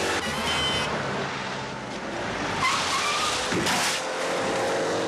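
A car speeding past with its engine running, a brief tyre squeal, then a short burst of noise as it ploughs through roadside bushes and branches, over a film's music soundtrack.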